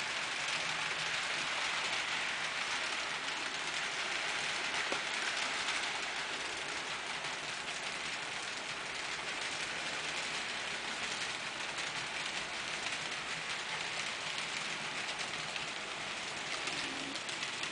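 N scale model train running on its layout: a resin GE 70-Tonner on a Tomy-Tec mechanism pulling twelve Kato Daylight passenger cars. It makes a steady, fine rattle of small metal wheels rolling on the rails.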